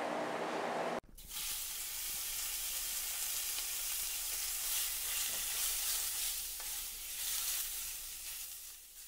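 Steady background noise with a low hum that cuts off abruptly about a second in, followed by a steady sizzling hiss that fades out near the end.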